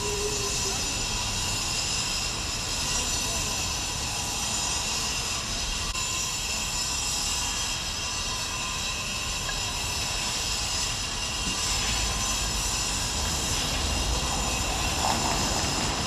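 Steady machine noise with a high-pitched whine, typical of machinery working on a paving site.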